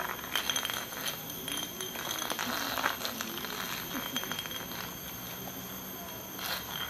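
Long-tailed macaque scraping a glass lightbulb on concrete pavement: a run of gritty scratches and light clinks, densest in the first three seconds, then quieter.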